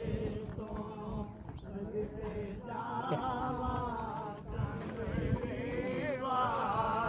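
A man's voice singing a devotional Punjabi naat in long, wavering sung phrases with short breaks between lines.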